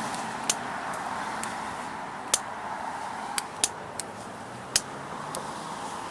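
Butane pencil torch burning with a steady hiss while the end of the nylon starter rope is heated, with a handful of sharp clicks and taps from handling the parts.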